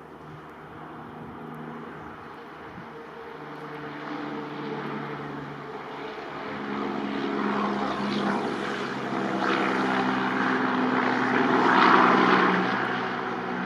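Strong wind gusting and building to its loudest about twelve seconds in, over a steady low mechanical drone.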